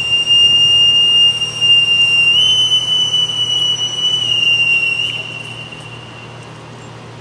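Boatswain's pipe sounding one long, high, steady whistle that steps up slightly about two seconds in, eases back down near four seconds and stops about five seconds in. It is piping an arriving officer aboard, the naval honor rendered as he passes through the sideboys.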